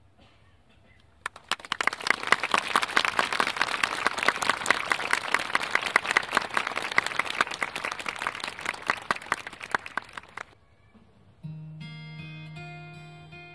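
Audience applauding for about nine seconds, starting about a second in and dying away. Then an acoustic guitar starts playing near the end.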